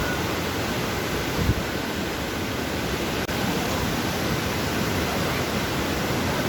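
Waterfall falling: a steady, even rush of water. A short low thump about one and a half seconds in.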